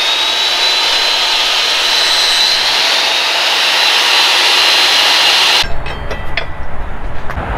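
Magnetic-base drill cutting a hole through thick steel plate: the motor runs with a steady high whine over the hiss of the cutter in the metal, and it cuts off suddenly about two-thirds of the way in. After that come a few metal clicks and clinks as a steel nut and bolt are handled on a bracket.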